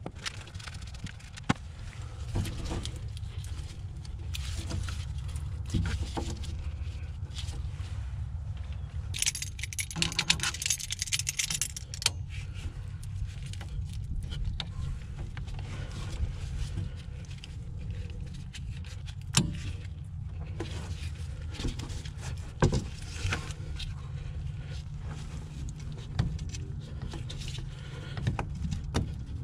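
Hand tools working on steering box bolts: scattered metal clinks and taps, with a few seconds of rapid metallic clicking about ten seconds in. A steady low hum runs underneath.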